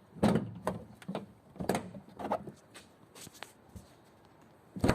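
Handling noise from the removed plastic rear trim cover: a run of separate knocks and clatters, the loudest just before the end.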